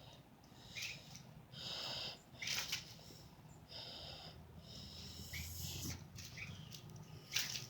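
Frightened baby bird stuck on a glue trap calling: a string of short, high-pitched cheeps every second or so, some falling slightly in pitch.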